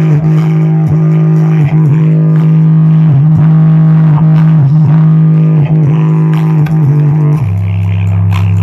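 Bass-boosted music played loud through a Panasonic SC-AKX220 subwoofer with its equalizer and bass boost on. A heavy sustained bass note with brief breaks drops to a lower note about seven seconds in.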